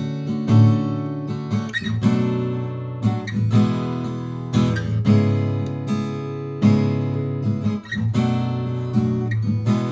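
Sqoe S200-FG acoustic guitar, solid cedar top with black walnut back and sides, played in chords. A new chord is strummed about every second and each one is left to ring.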